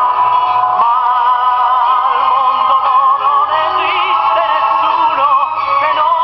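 Music: a singer holding long notes with heavy vibrato over accompaniment.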